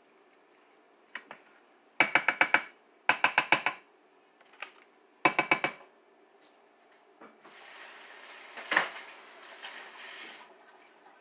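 A spoon rapped against the rim of an enamel pot in three quick runs of ringing taps, about five taps each. Then a tap runs at the sink for about three seconds.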